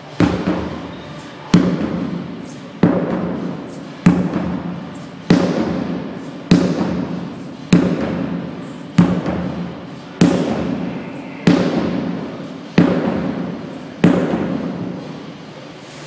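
Sledgehammer striking a tire in a steady rhythm: twelve heavy blows, about one every second and a quarter, each a loud thud that dies away over about a second.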